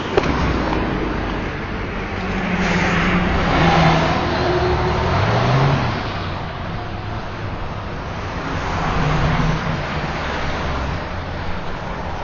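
Road traffic: two vehicles pass, the first and louder one building from about two seconds in and fading by six seconds, the second about nine seconds in.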